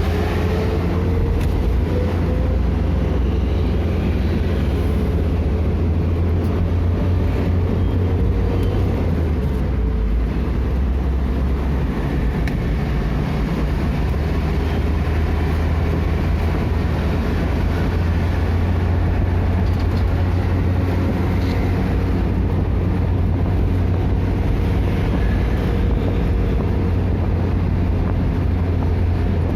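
Vehicle on the move: steady low engine and road drone with a faint whine, unbroken throughout.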